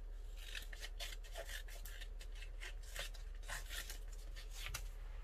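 Scissors cutting through a sheet of colored paper: a run of short, quick snips with paper rustling between them, over a low steady hum.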